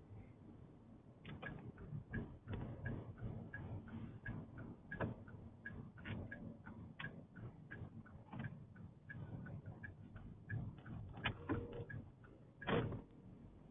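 Light clicking inside a moving car's cabin, about three clicks a second, over low road rumble. A few louder knocks come about five seconds in and again near the end.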